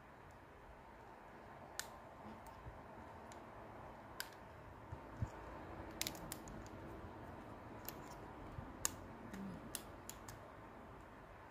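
Scattered light clicks and taps, about a dozen at irregular intervals, over a faint steady hiss.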